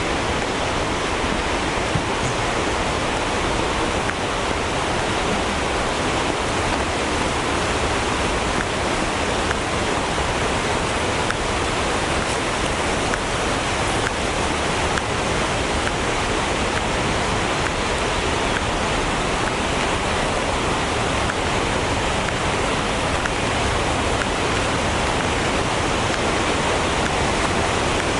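Yudaki, a large cascade waterfall, sliding down its rock face: a loud, steady, unbroken rush of falling water.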